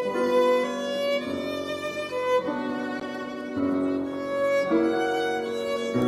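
Violins playing a slow, lyrical melody in long held notes over piano accompaniment, with bass notes entering a few times.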